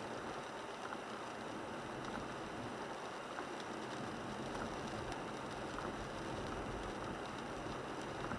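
Steady road noise heard inside the cabin of a 1998 Toyota 4Runner driving on wet pavement in the rain, with scattered faint ticks of raindrops on the windshield.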